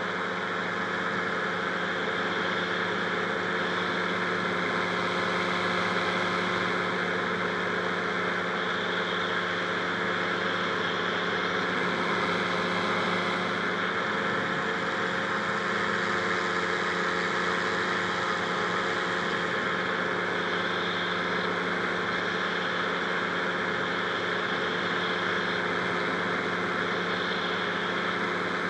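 Two-stroke twin-cylinder Rotax 582 engine of a Buckeye powered parachute running steadily, its pitch holding level.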